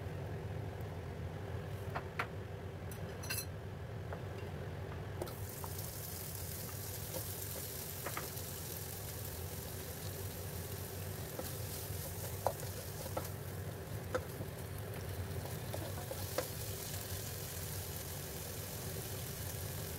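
Peeled shrimp sizzling as they fry in a hot nonstick frying pan. The sizzle starts about five seconds in, with a few light clicks scattered through it, over a steady low hum.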